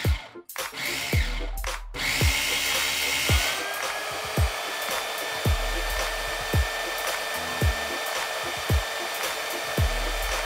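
Electric immersion (stick) blender motor running as it purees boiled potatoes in a pot. It runs steadily from about two seconds in, its whine rising slightly in pitch soon after and then holding.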